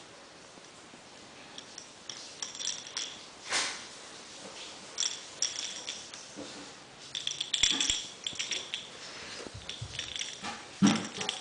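Small cat toy ball jingling and rattling in short, irregular bursts as a kitten bats it along the floor, with a few light knocks as it rolls and bumps.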